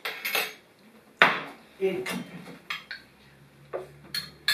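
Metal spoon and fork clinking against porcelain bowls while eating, a string of separate clinks with the loudest about a second in.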